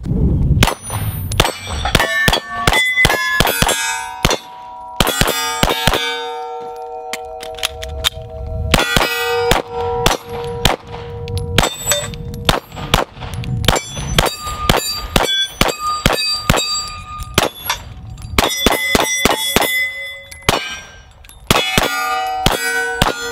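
Glock 34 9mm pistol fired in quick strings with short pauses between them. The steel targets and plate-rack plates clang and ring on each hit.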